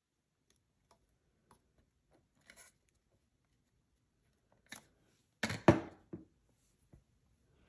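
A plastic security camera being handled: a few faint clicks and rustles, then a sharp double knock about five and a half seconds in as the camera is set down on a hard tabletop.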